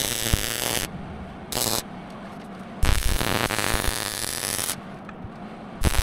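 Arc welding on 3/8-inch steel plate: several bursts of crackling arc that start and stop abruptly, the longest nearly two seconds. A steady low hum continues between bursts.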